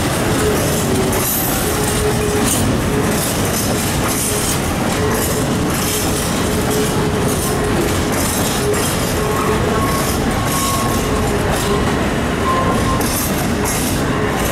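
Freight train of open-top gondola wagons rolling past at close range: a loud, steady rumble of steel wheels on rail, with irregular clicks as wheelsets cross rail joints and thin wheel squeals coming and going.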